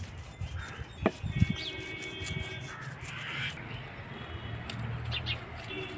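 Crows cawing a few times, with two sharp knocks about a second in from gloved hands working food in a steel bowl.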